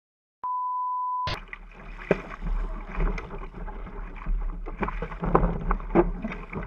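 A steady, high electronic beep lasting just under a second. Then wind rushing over an action camera's microphone and water splashing along the hull of a small sailboat heeling under sail, with scattered sharp knocks.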